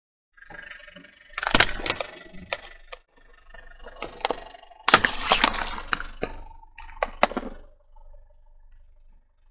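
Plastic jars full of water beads cracking and splitting under a car tyre: sharp plastic cracks with two loud bursts of crunching, the second about five seconds in, then a few single cracks dying away.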